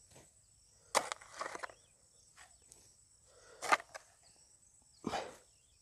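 Mammoty (short-handled hoe) striking and scraping into loose red soil, pulling it into a planting pit: about four separate strokes a second or more apart.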